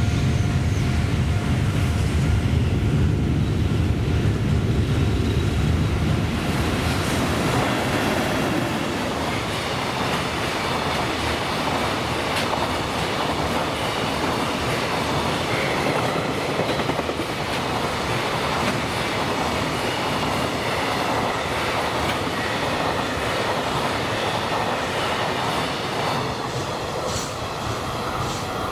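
A JR Freight EH500 electric locomotive passes at speed with a full train of container wagons. For the first six seconds there is a heavy low rumble from the locomotive, then a steady rush of the wagons' wheels clattering over the rail joints.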